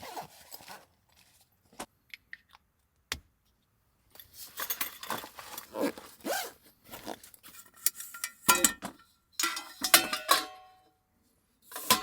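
Small metal objects jangling and clinking in repeated bursts with short ringing tones, after a few scattered clicks.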